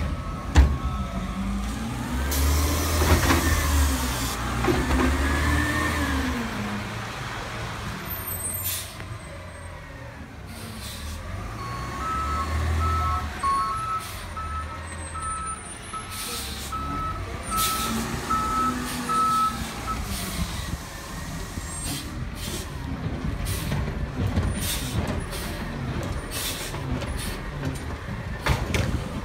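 Garbage truck's diesel engine rumbling and revving up and down in long swells, with sharp air-brake hisses now and then. A backup alarm beeps steadily from about twelve to twenty seconds in.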